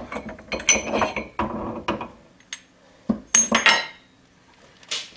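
Steel wheel hub clinking and knocking against the shop press's metal bed and tooling as it is handled and lifted out. There is a run of clinks in the first two seconds, a louder cluster a little past three seconds, and one last click near the end.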